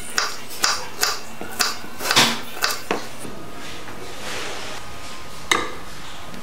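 Small kitchen knife slicing a strawberry onto a wooden cutting board: a quick run of about seven sharp taps in the first three seconds, then one more knock about five and a half seconds in, over a steady background hiss.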